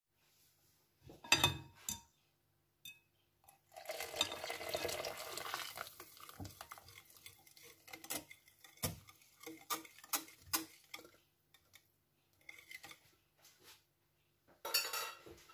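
Wire whisk beating a wet batter in a glass mixing bowl, its wires clicking and scraping against the glass in irregular stop-start bursts, with a longer stretch of steady whisking about four to six seconds in.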